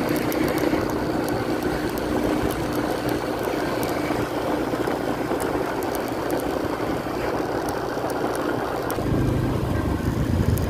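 Motorcycle engine running with a steady hum while riding, over wind and road noise. About nine seconds in, a deeper rumble comes in.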